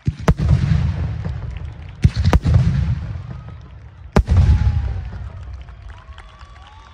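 Fireworks: aerial shells bursting with sharp bangs, four reports in all, two of them close together about two seconds in. Each bang is followed by a deep rolling rumble that slowly dies away.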